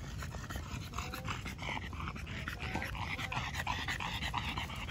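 A dog panting in quick short breaths, getting heavier in the second half.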